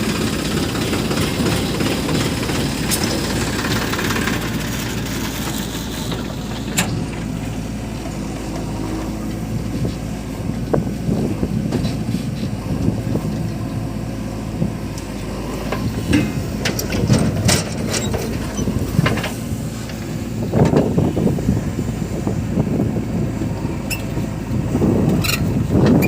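JCB 3DX backhoe loader's diesel engine running steadily while it digs and loads mud, with scattered metallic clanks and knocks from the working bucket and arms, several of them bunched in the second half.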